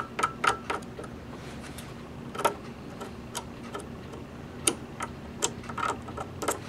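Light, sharp clicks and taps from fingers working at a serger's metal needle clamp, pressing putty into its stripped screw head. There is a quick run of clicks at the start, then a few scattered ones.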